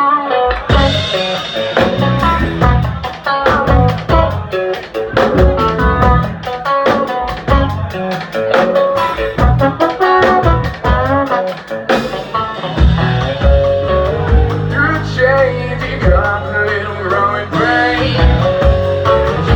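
A band playing a song: guitar over a heavy bass line and steady drums, with singing.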